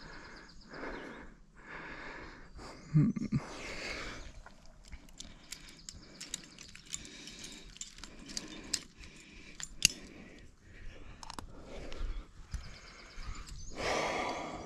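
A rock climber breathing hard while jamming up a crack, with climbing gear clinking in sharp clicks. There is a knock about three seconds in and a louder breath near the end.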